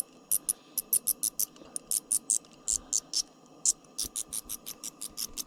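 A bat caught on a fishing line squeaking rapidly and high-pitched, about seven squeaks a second with a short pause near the end: distress calls of the hooked bat.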